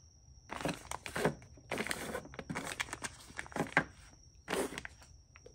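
Packaging of a new camshaft position sensor kit rustling and crinkling in several short bursts as it is handled.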